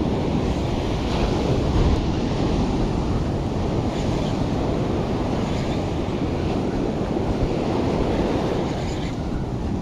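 Surf breaking and washing up the beach, with wind buffeting the microphone in a steady low rumble.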